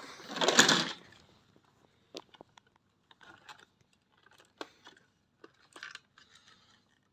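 Plastic parts of an Ecovacs Deebot Ozmo 950 robot vacuum being handled as its bumper is fitted back on: a rustling scrape in the first second, then scattered light clicks and short scrapes.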